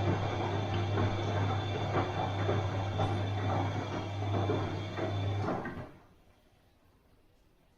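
Bosch washing machine running: a steady motor hum with the drum tumbling and clattering, which stops abruptly about five and a half seconds in, leaving near silence.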